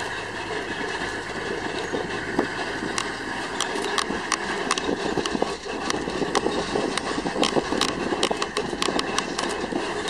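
Car driving, heard from inside the cabin: a steady run of road and engine noise, with many sharp, irregular clicks and ticks from about three seconds in.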